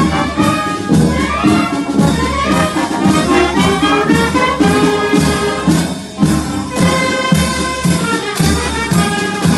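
Wind band playing, with trumpets and trombones leading over a steady beat. The sound thins out briefly about six seconds in.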